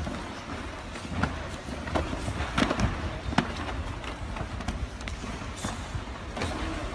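Karate sparring: irregular thuds and slaps of punches and kicks landing and feet moving on the floor, a handful of sharp hits a second or so apart over room noise.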